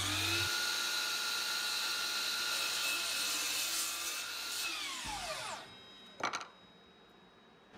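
DeWalt FlexVolt brushless sliding miter saw crosscutting a cherry board. The motor whine climbs as it spins up, holds steady through the cut, and falls away as the blade winds down just after five seconds in. A single knock follows about a second later.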